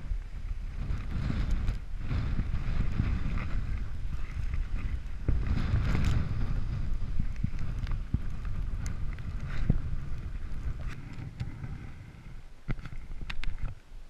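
Wind buffeting the camera's microphone: a gusty, uneven low rumble that swells and eases, with a few sharp clicks near the end.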